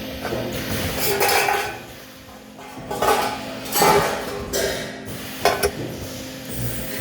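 Metal parts clanking and clinking in a welding shop, several separate knocks with a short metallic ring, over a steady low hum.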